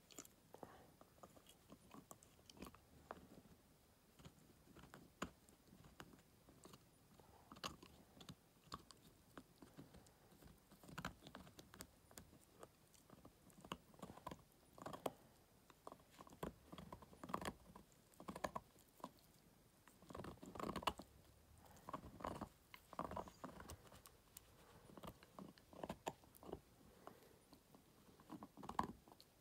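Miniature schnauzer gnawing a white chew stick held in its front paws: quiet, irregular crunching and clicking bites, coming thicker in the second half.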